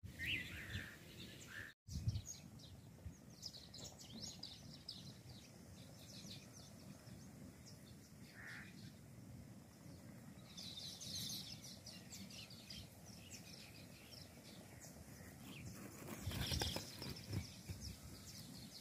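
Birds chirping faintly here and there over a steady outdoor background hiss. The sound drops out for a moment about two seconds in, and a low rumble comes up near the end.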